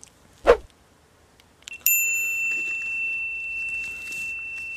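Logo-reveal sound effects: a short, sharp downward swoosh about half a second in, then a couple of light clicks and a single high bell-like ding that rings on, fading slowly, for about three seconds.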